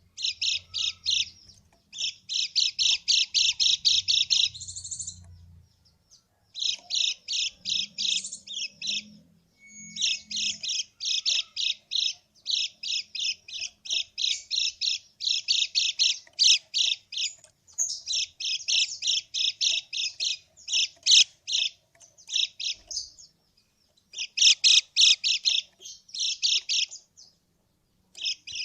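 Common iora (kecial kuning) giving its harsh 'krekek' chatter: rapid trains of scratchy notes, about five a second, in bursts of a few seconds with short pauses between.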